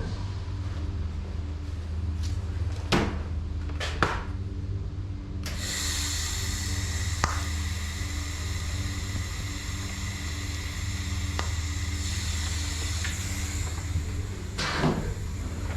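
Stainless steel pipe fittings being handled and set in place, with a few sharp metal knocks, over a steady electrical hum. About five seconds in a steady hiss starts abruptly and runs for about nine seconds before stopping.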